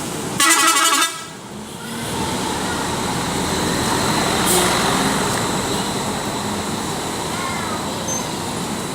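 Bus telolet horn sounding one short multi-tone blast just after the start, then a steady rush of the bus's engine and tyre noise.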